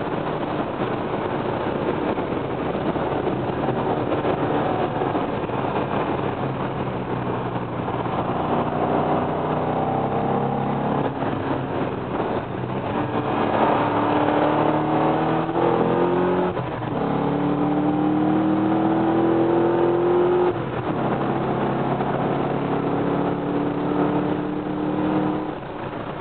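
Corvette Z06's 7-litre V8 heard from inside the cabin, accelerating hard on track. The engine note climbs steadily in pitch through each gear and falls back at every upshift, several times over, with a sudden drop about two thirds of the way through.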